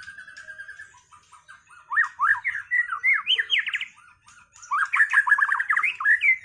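White-rumped shama (murai batu) singing. A trill fades out in the first second, then come two bursts of fast, rising, chattering notes.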